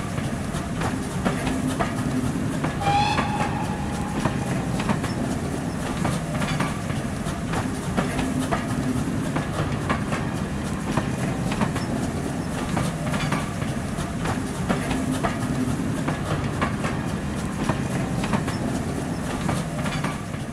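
Model train running along the track, with a steady low hum and regular clicking over the rail joints. A brief high whistling tone sounds about three seconds in.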